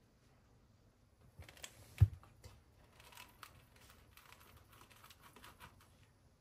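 Faint rustling and small clicks of hands working soft cookie dough with a plastic cookie cutter on a wooden board, with one dull thump about two seconds in.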